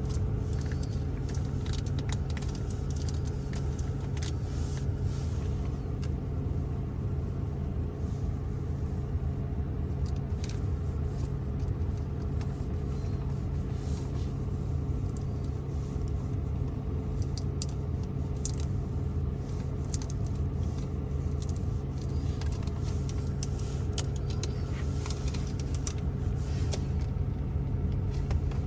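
ASMR tapping and scratching on the interior surfaces of a Ford Focus: many scattered, irregular light taps and clicks over a steady low hum.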